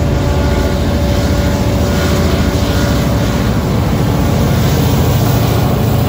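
Freight train passing close by: a CSX six-axle diesel locomotive placed mid-train runs with a steady low engine rumble over the rumble of tank car wheels on the rails. It grows a little louder in the second half as the locomotive draws level.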